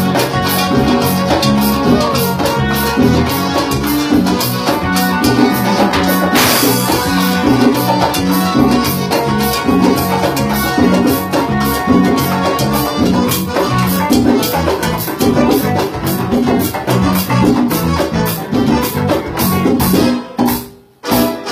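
Live band playing a Latin-flavoured instrumental groove on electric guitar, congas and hand percussion over a steady bass pattern. The music stops briefly about a second before the end, then starts again.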